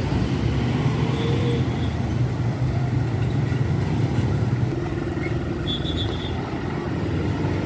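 Heavy road vehicle engine running close by: a steady low drone that eases off a little about five seconds in. Two brief, faint high peeps sound over it.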